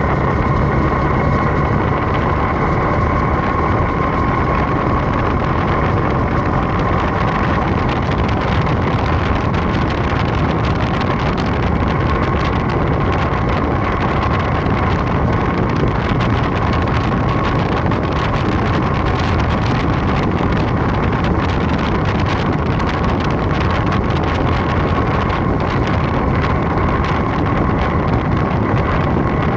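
BMW R1250GS motorcycle being ridden at a steady cruise: its boxer-twin engine running at an even pitch under heavy wind rush on the microphone, the level unchanging throughout.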